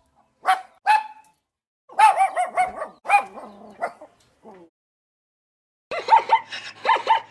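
Dog barking: two short barks, then a quick run of barks. After a pause, a burst of rapid high-pitched calls comes over a steady low hum near the end.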